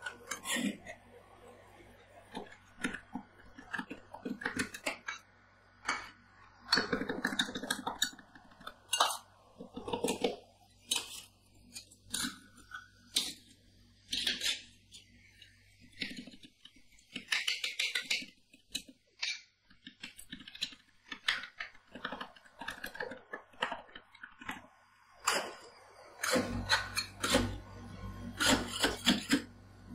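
Two metal spatulas chopping and scraping cherry tomatoes into freezing ice cream base on a stainless-steel cold plate: irregular sharp metal taps and clinks with short scrapes, as the mix-ins are chopped in while making rolled ice cream.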